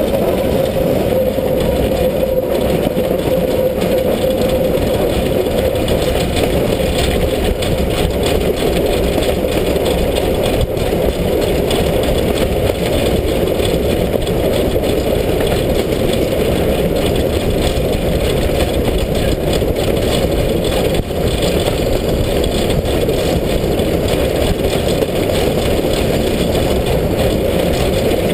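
Steam locomotive 33-037, a class 33 2-10-0, running along the line, heard from its side: a steady, loud rush of running noise and wind over the microphone, with a rattle.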